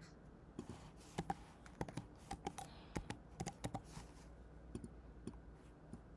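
Computer keyboard typing: a quick run of quiet key clicks for about three and a half seconds, then a few single clicks near the end.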